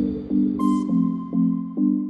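Background music: electronic-sounding chords repeating in a steady pulse, with a held higher note over them.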